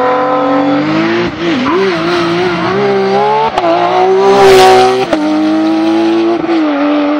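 Porsche 911 GT3 rally car's flat-six engine run at high revs, with a brief lift and pick-up of the throttle and sudden jumps in pitch twice in the second half. A rushing hiss rises over the engine about four and a half seconds in, at the loudest point.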